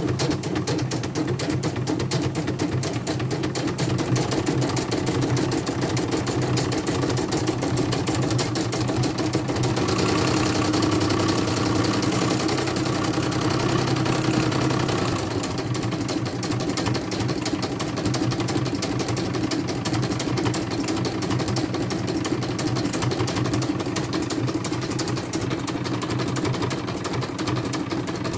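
CNY portable computerized embroidery machine stitching at speed: a fast, even run of needle strokes over the motor's hum. It grows a little louder for about five seconds near the middle.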